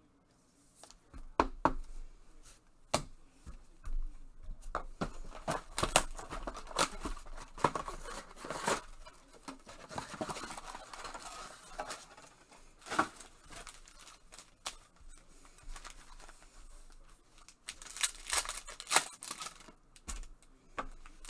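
Trading card packs being handled and torn open: wrappers crinkling and tearing, with irregular sharp clicks and rustles starting about a second in.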